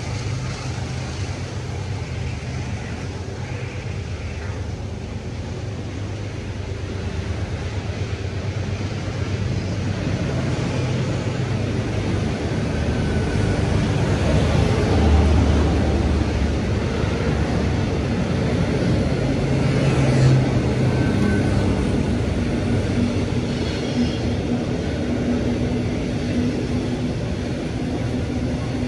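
A train running past with a steady low rumble and engine drone, growing louder midway.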